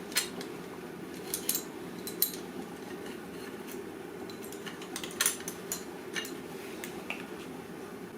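Metal motorcycle clutch parts and hand tools being handled, giving scattered light metallic clinks and taps at irregular intervals, with a small cluster about five seconds in. A steady low hum runs underneath.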